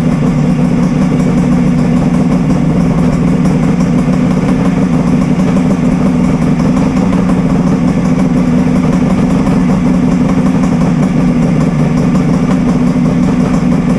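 Kawasaki Mach III three-cylinder two-stroke engine idling steadily, freshly rebuilt and running on a newly fitted electronic ignition.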